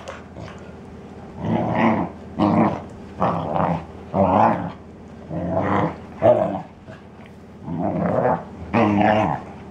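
Basset hounds play-fighting, growling and grumbling in about eight short bouts, each about half a second long, with a pause of a second or so near the middle.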